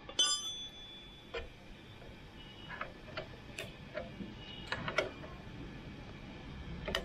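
Hand tools and metal motorcycle parts clinking during dismantling: one sharp ringing metal clink just after the start, then scattered light clicks and taps at irregular intervals.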